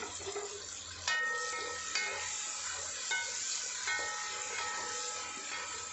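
Onions, tomatoes and herbs sizzling in oil in a heavy non-stick pot while a spoon stirs them. The spoon knocks against the pot a few times, each knock giving a short ringing tone over the steady frying hiss.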